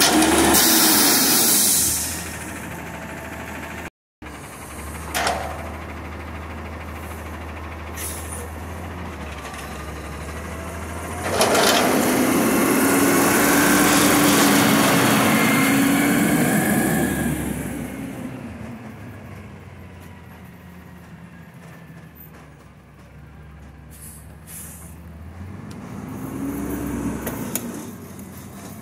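Peterbilt 320 McNeilus Meridian front-loader garbage truck's diesel engine idling and revving up then falling back three times, the longest rev lasting several seconds, with a high hiss at the loudest moments.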